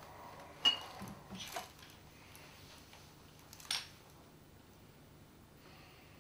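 A few light clinks and knocks of small hard objects being handled, the loudest just under a second in with a brief ringing note, then a small cluster and one more clink a few seconds later, over a low steady hum.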